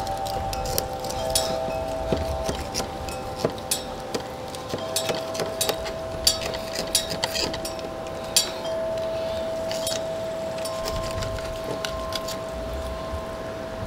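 Soft background music of held tones that shift in pitch every few seconds. Under it come irregular light clicks and scrapes of a fillet knife cutting along a catfish's bones.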